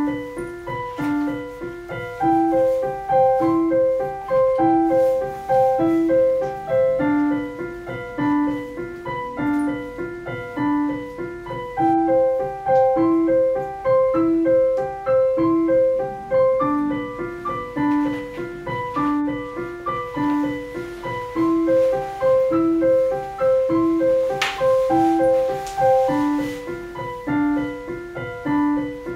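Solo piano background music: a calm figure of notes that repeats at an even pace.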